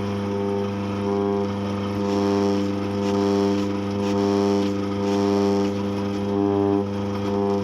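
Eureka Mignon Single Dose coffee grinder's motor running with a steady droning hum that swells and fades about once a second, the vibration and noise problem the owner is showing.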